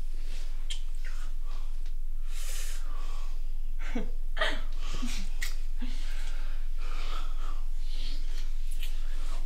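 Two people breathing heavily and kissing, with a few short voiced gasps about four to five and a half seconds in.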